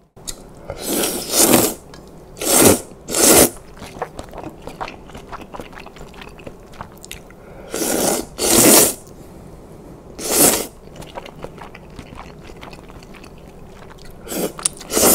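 Loud crunching noises in short bursts of about half a second each, mostly in pairs, with quieter rustling between them.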